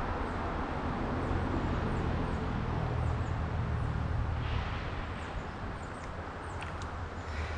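Steady rushing noise of the trout creek's flowing water, with a low rumble that eases a little past the halfway point. Faint high chirps repeat throughout.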